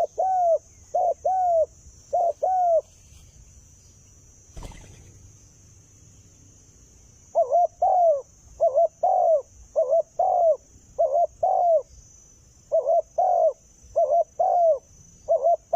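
Spotted dove cooing in quick runs of short, arched coo notes, mostly in pairs. The cooing stops for about four seconds near the middle, with a single soft knock in the pause, then starts again.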